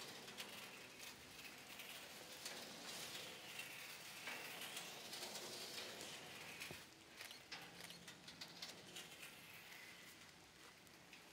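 Faint scraping and crackling of a Corten steel sculpture's blade dragging through soft forest soil as it is pushed round on its pivot, with many small clicks.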